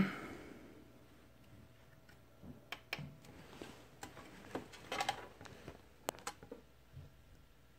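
About ten faint, short clicks and taps at irregular intervals, bunched around three and five seconds in.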